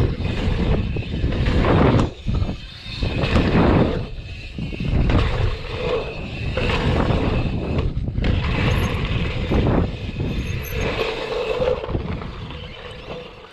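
Wind buffeting the camera microphone and knobby tyres rolling over packed dirt as a mountain bike rides a dirt-jump line. The rushing rises and falls every second or two and fades out near the end.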